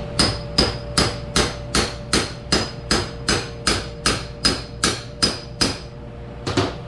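Hammer tapping steadily on metal, about two or three blows a second with a short metallic ring to each, driving a tight-fitting part into a hydraulic cylinder during a rebuild. The tapping stops for a moment and then two more blows land near the end.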